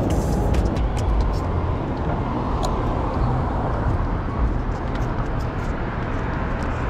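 Steady city street traffic noise: a dense low rumble of road vehicles.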